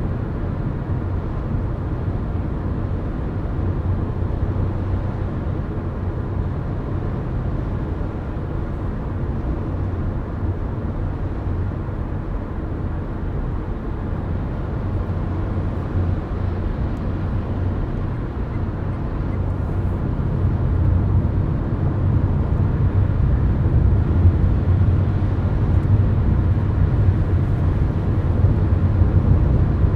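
Car driving at highway speed, heard from inside the cabin: a steady low rumble of road and tyre noise that swells somewhat louder about two-thirds of the way through.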